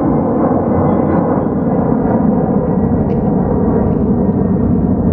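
Boeing 767 freighter's twin jet engines at climb thrust as it departs overhead: a loud, steady rumble.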